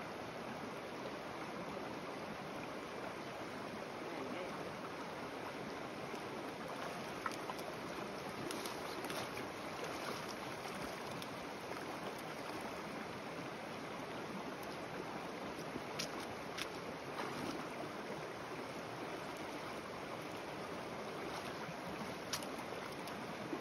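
Small mountain creek running over a rocky bed: a steady rush of flowing water, with a few faint clicks.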